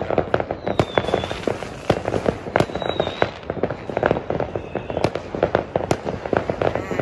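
Many New Year's Eve fireworks and firecrackers going off at once: a dense, unbroken barrage of sharp bangs and pops, with a few brief high whistles among them.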